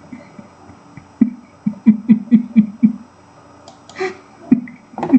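A man laughing: a run of short "ha" bursts, about four a second, then a few more scattered laughs near the end.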